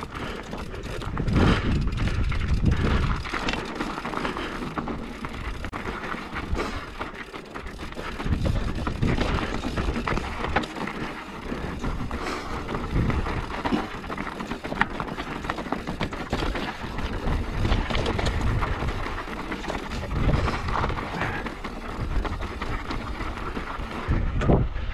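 Mountain bike riding down a rough, rocky trail: tyres crunching over loose stones and the bike rattling and clattering without a break, with wind buffeting the microphone.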